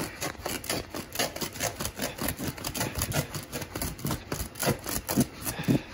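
Utility knife blade slicing through thick layered carpet and its woven backing in quick, short scratchy strokes, several a second.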